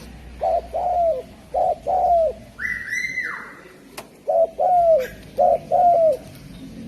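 Spotted dove (derkuku) cooing: two phrases of four low coos, alternating short and longer notes, the longer ones dropping in pitch at the end. Between the phrases comes a brief, higher-pitched call and a single click.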